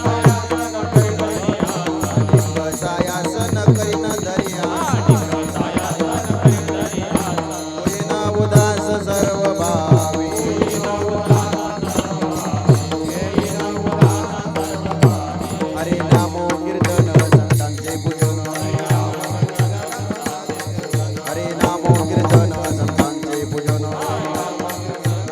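Instrumental interlude of Marathi kirtan music: a held, pitched melody with steady, rhythmic drum strokes and high cymbal-like ticks keeping time.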